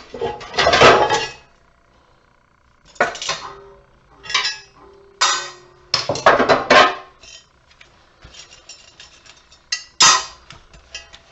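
Heavy glass light-fixture shades and metal fixture parts clattering and clinking as they are handled and set down, in about six separate bursts; a couple of them leave a short ringing tone.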